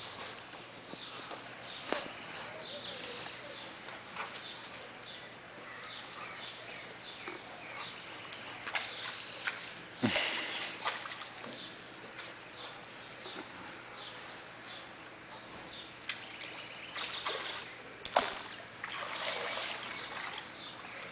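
Backyard ambience: small birds chirping on and off over a faint trickle of water, with a few scattered sharp taps and knocks.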